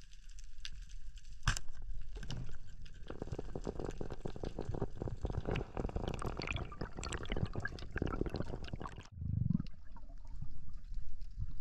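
Underwater water noise with bubbling and a dense crackle of short clicks. About nine seconds in the sound changes abruptly, followed by a brief low surge.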